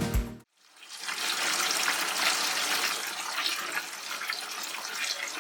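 Water running and spraying in a steady hiss, as from a grooming shower head. Before it, music cuts off suddenly about half a second in.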